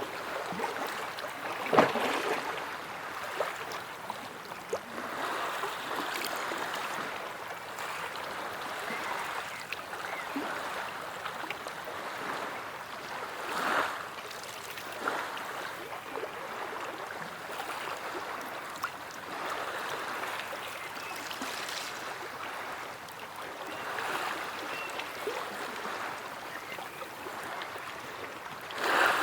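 Sea waves lapping and washing in continuously, with small splashes and brief louder surges about two seconds in, around fourteen seconds, and at the very end.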